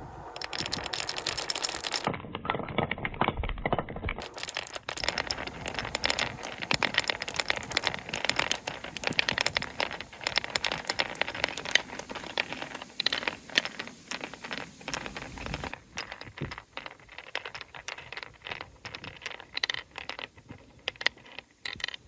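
Balls rolling and clattering along a park-bench marble run and down a wooden staircase track: a dense rattle of small knocks and clicks that thins out after about 16 seconds and stops near the end.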